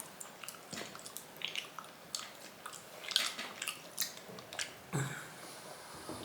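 A person chewing raw meat with the mouth close to the microphone: irregular wet clicks and smacks.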